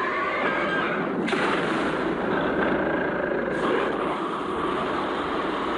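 Continuous gunfire and blast sound effects, a dense steady barrage for the whole stretch.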